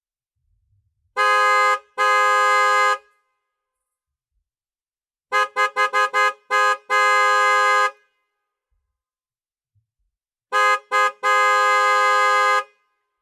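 Car horn honking in three bouts with silence between: first a short honk and then a longer one; then a rapid string of short toots ending in a long blast of about a second; then three quick toots and a long blast of over a second.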